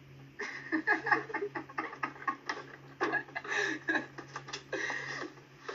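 Schoolchildren snickering and giggling in short, quick bursts, over a steady low hum.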